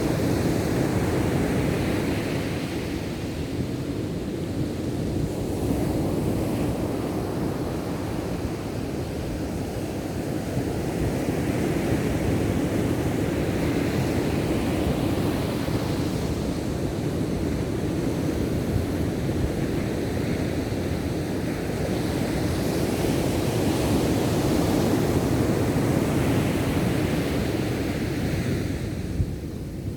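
Ocean surf: waves breaking and washing in continuously, swelling louder at intervals of about ten seconds.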